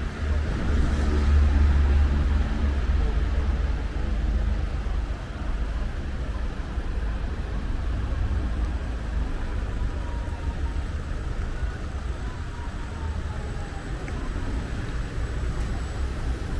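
Road traffic passing on a wet city street: cars and vans going by, with a steady low engine rumble that is loudest in the first few seconds.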